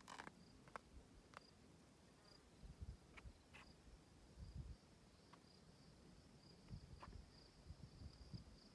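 Faint, high-pitched insect trilling that pulses steadily, with a few soft low thumps and small clicks.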